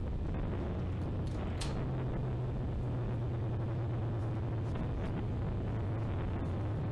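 Several BMW race cars' engines running as a pack passes along the circuit, a steady low engine sound.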